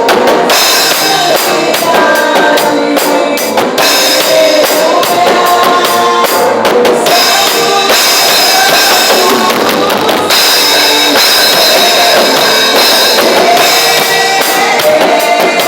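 Drum kit played with a live worship band: continuous snare, bass drum and cymbal hits over a melody, loud throughout.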